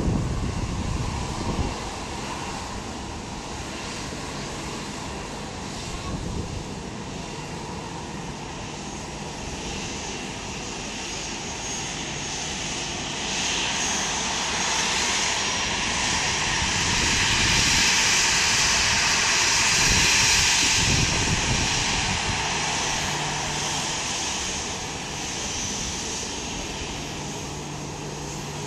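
Boeing 737 airliner's CFM56 jet engines running at low thrust as it taxis and turns on the runway. The hissing whine swells to its loudest about two-thirds of the way through, then eases off.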